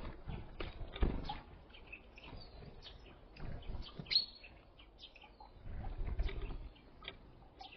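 Small songbirds at a feeder giving short, high chirps and calls, mixed with scattered knocks and low thumps from birds landing and moving about.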